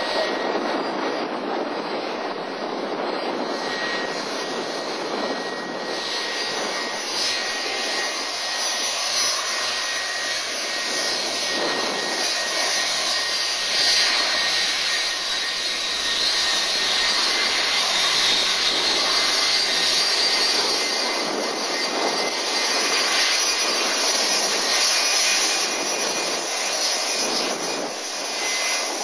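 Boeing 757-200's Rolls-Royce RB211 turbofan engines running as the airliner moves along the runway: a steady jet rush with a high whine, growing louder about halfway through.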